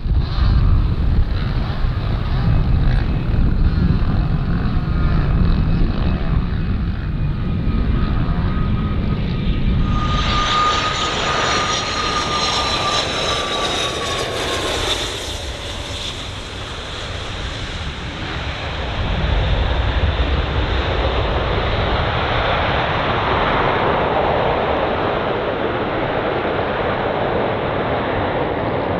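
Gulfstream IV SP business jet landing, its twin Rolls-Royce Tay turbofans heard throughout. A low rumble on approach gives way, about ten seconds in, to a high engine whine that falls slightly in pitch as it passes close by. Broad engine noise swells again as it rolls out on the runway.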